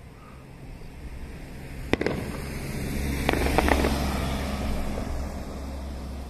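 Festival fireworks: one sharp bang about two seconds in, then a rolling rumble with a quick cluster of crackling reports, fading toward the end.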